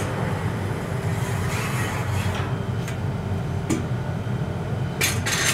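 Steady low rumble of a running cremator, with a long steel rake scraping as it is drawn out through the cremator's hatch. A few light knocks and a louder metal clank near the end.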